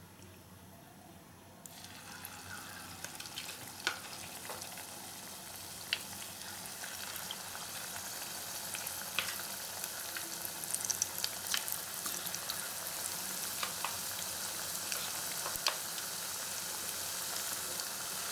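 Coated chicken pieces deep-frying in hot vegetable oil in a kadai: sizzling with scattered sharp pops, starting suddenly about a second and a half in and slowly growing louder as more pieces go into the oil.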